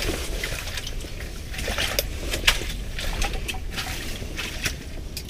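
Scattered light clicks and rustling of gear and clothing being handled, over a steady low rumble.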